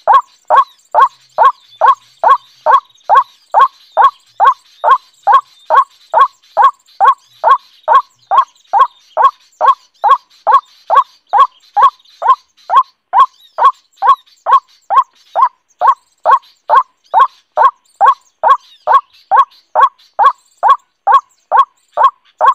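Recorded white-breasted waterhen calls played loud from a portable speaker as a lure at a snare trap: short calls repeated evenly, about two a second, without a break.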